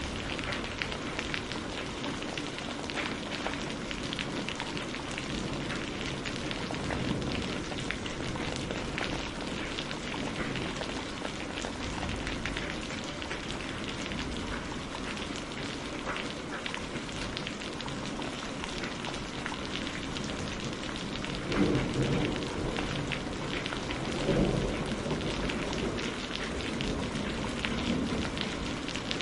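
Steady rain falling, with a dense patter of individual drops. Two short, louder low rumbles come about three-quarters of the way through.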